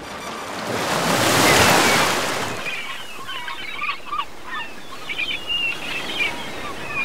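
A wave washing in, swelling to a peak about a second and a half in and then fading. After it come short, squeaky bird calls over a soft surf hiss.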